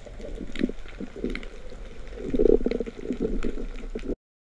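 Muffled underwater water noise heard through a GoPro's waterproof housing: an uneven rumbling with a few faint clicks, cutting off suddenly about four seconds in.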